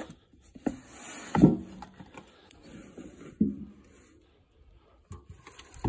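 A few dull knocks and scrapes with a short rustle, loudest about one and a half seconds in.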